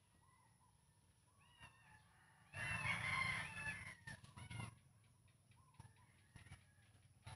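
A rooster crows once, about two and a half seconds in, a loud call of roughly two seconds, with faint chirps of small birds around it.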